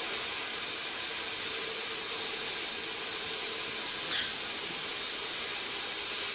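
Steady even hiss, with one light tap of a spoon against a metal pressure cooker about four seconds in as a spoonful of spice is added.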